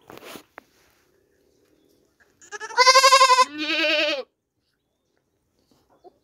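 Young goat kid bleating twice in quick succession, a couple of seconds in: quavering calls, the second one lower-pitched.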